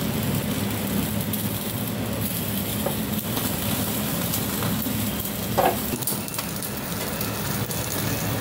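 Marinated whole chicken sizzling as it roasts on a wire stand directly over a gas burner flame, a steady sizzle with the burner's rush beneath it and a few short crackles and pops.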